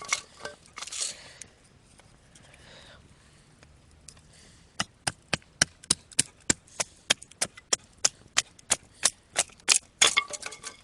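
Batoning firewood: a knife blade driven through a log by striking it with a wooden baton, sharp wooden knocks. A few knocks come near the start, then after a short lull a steady run of about four knocks a second.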